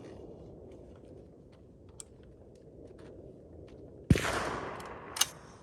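A rifle shot about four seconds in, echoing for about a second, then a shorter, sharper crack about a second later.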